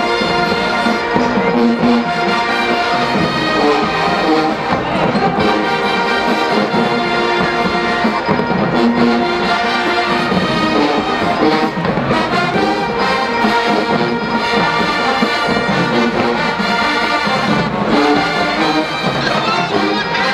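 College marching band playing, with the brass section (trumpets and trombones) carrying the tune loudly and without a break.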